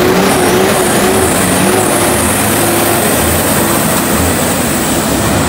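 Diesel semi-truck engine and exhaust running loud as the truck pulls away at close range, with a thin high whine above it.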